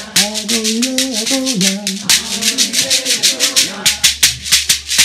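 Shekere, a gourd rattle wrapped in a net of beads, shaken in a quick, steady rhythm. A man's voice sings over it for the first couple of seconds.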